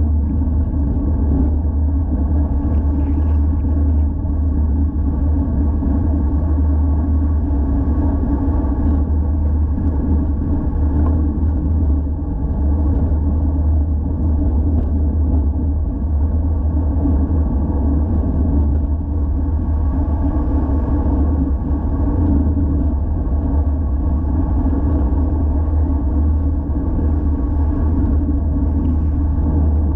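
Steady low rumble of wind and road noise on an action camera's microphone while a road bike is ridden.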